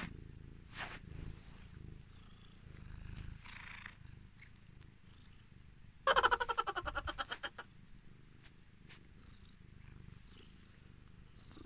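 Calico cat purring steadily with a low rumble, close to the microphone. About six seconds in, a loud, rapidly pulsing sound cuts in for about a second and a half.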